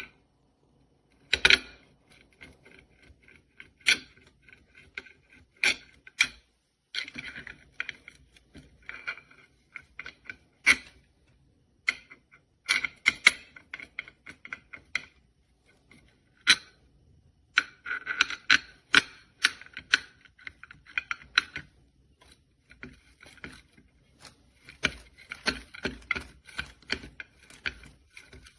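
Handling noise: irregular sharp clicks and knocks, some single and some in quick rattling clusters, as small hard objects are moved and set down.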